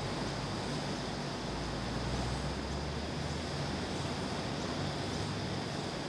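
Air conditioning unit running: a steady rushing noise with a thin high whine over a low rumble.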